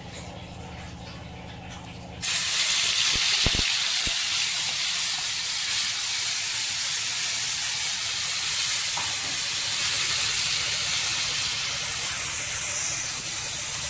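Hot oil in a steel kadai starts sizzling loudly and suddenly about two seconds in as ground paste is dropped in, then keeps up a steady frying sizzle.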